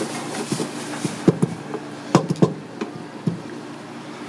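Top shell sea snail shell and meat handled against a cutting board: a few sharp knocks and clicks over a steady low hum.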